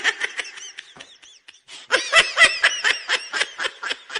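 High-pitched laughter in quick rapid bursts, dying down about a second in and breaking out again louder near the two-second mark.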